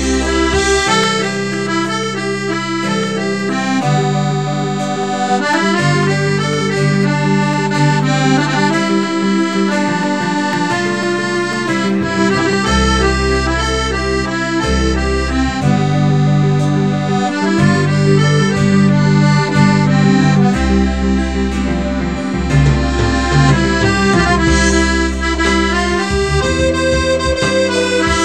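Piano accordion playing a melody on the right-hand keyboard over long held bass notes from the left-hand buttons.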